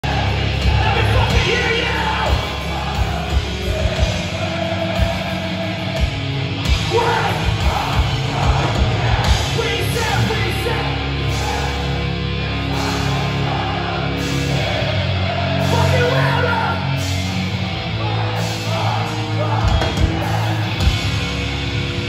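Hardcore punk band playing live: loud distorted guitars, bass and pounding drums with shouted vocals, heard from within the audience.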